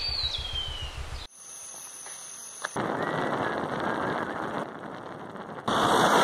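Wind buffeting the microphone on a moving motorcycle, in several cut-together stretches: low engine pulsing under it in the first second, a brief quieter stretch, then steady wind noise that grows louder near the end.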